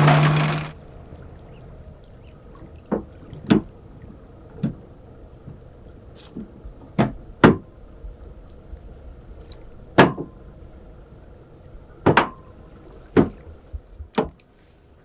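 A loud running noise with a low hum cuts off suddenly in the first second. Then the anchor chain knocks against the bow fitting as it is paid out to anchor, about nine sharp clanks at irregular intervals.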